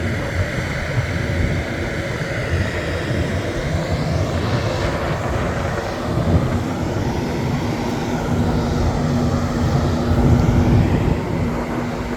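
Aircraft engine noise: a steady rumble whose tone sweeps slowly up and down. A steady hum joins about halfway through.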